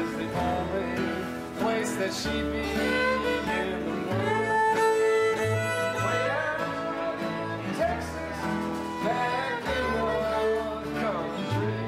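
Several acoustic guitars and a fiddle playing a tune together in a live jam.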